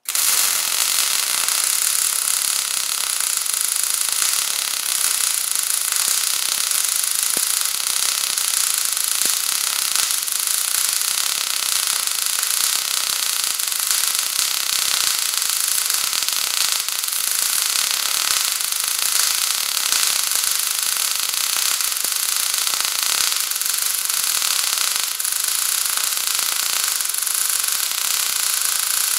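MIG welding arc crackling and hissing steadily on a vertical-up weld in steel plate with 0.035 wire, starting abruptly and running without a break.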